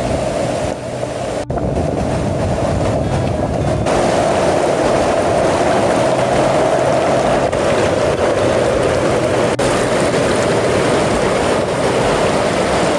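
Brown floodwater of a swollen river rushing and churning over rapids, a loud, steady rush of water.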